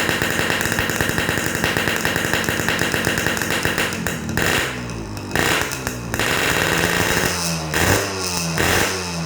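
Tuned motorcycle engine with a big-bore piston and ported head, revved hard through an open exhaust. It is held high for about four seconds, drops back, is revved again about five seconds in, then blipped with quick falls in pitch near the end.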